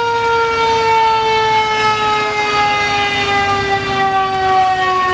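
Fire engine's siren in one long wail, its pitch falling slowly and steadily.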